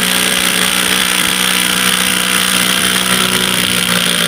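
Ridgid R87207 18V cordless impact wrench hammering steadily as it drives a 10 cm-long screw into wood.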